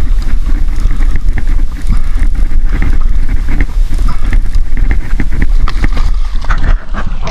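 Wind buffeting the camera microphone in a steady low rumble, with irregular knocks and water splashing as a hooked bonito thrashes at the surface beside the kayak near the end.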